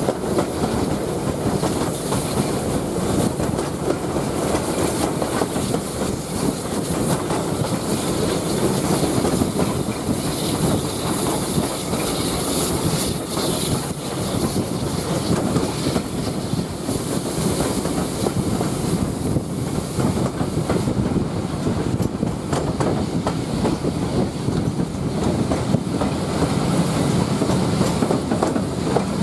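Carriages of a steam-hauled train running along the line, heard from an open carriage window: a steady rumble of wheels on the rails with many quick clicks from the track.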